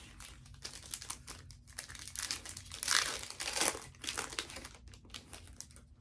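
Crinkling and tearing of a trading-card blaster box's packaging and its foil packs being opened by hand. The sound comes as a run of short rustles and clicks, loudest a little before halfway in.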